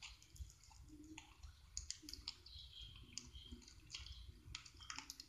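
Faint, irregular clicks and crackles of bead-filled slime being squeezed and picked up off a tile floor.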